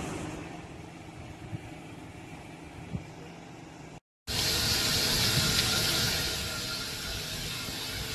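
York 17 4-4-0 steam locomotive: a steady hiss of steam over a low rumble, with a couple of light clicks. It cuts out briefly about four seconds in and comes back louder and hissier.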